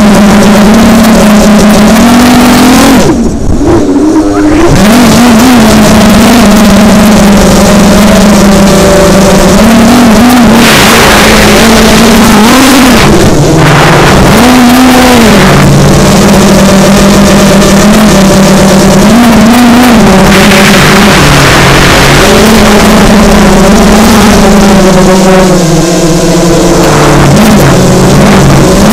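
FPV racing quadcopter's brushless motors buzzing loudly, heard through the onboard camera, the pitch rising and falling with the throttle. The motors drop off briefly about three seconds in as the throttle is cut, and gusts of wind rush come in twice.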